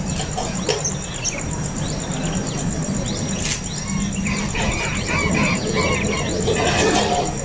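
Nestling birds giving high, squeaky begging chirps, which grow into a busy run of short rising and falling chirps in the second half. Under them runs a steady high pulsing buzz and a low rumble.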